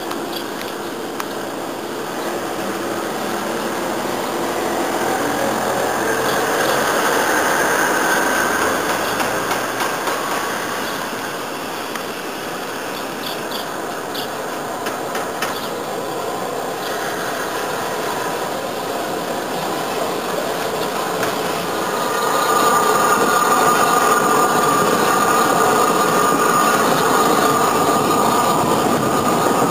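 Steam-hauled passenger train running slowly over curved station track, with wheels squealing and a few clicks over rail joints. The squealing grows louder about three quarters of the way in as the coaches pass close by.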